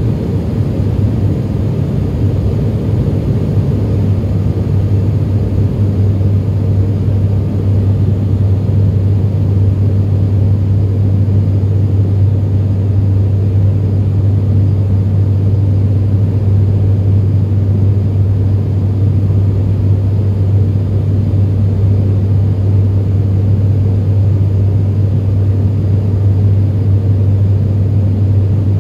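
ATR 72-500 turboprop cabin drone heard from a window seat beside the engine: the Pratt & Whitney PW127 turboprop and its six-blade propeller running steadily in the climb after takeoff. A deep, even propeller hum over a rumble, the hum growing a little stronger a few seconds in.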